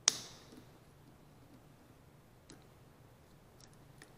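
Pliers working the spring clamp on a small engine's carburetor fuel line: one sharp metallic click just after the start that rings briefly, a weaker click about two and a half seconds in, and a few faint ticks near the end.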